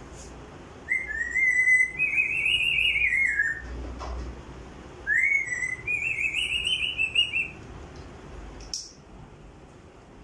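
African grey parrot whistling two warbling phrases, each sliding up at the start and then wavering up and down, the second beginning about five seconds in. A short sharp sound comes near the end.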